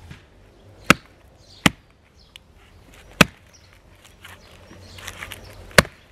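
Four sharp wooden knocks, spaced unevenly, of a knife being batoned through a small log to split it, with some lighter cracking of the wood near the end.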